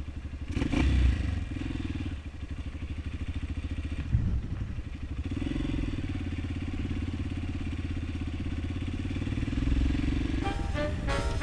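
Honda CRF230M supermoto's single-cylinder engine running with an even, fast pulsing rumble, swelling briefly about a second in and again about four seconds in. Swing music comes in near the end.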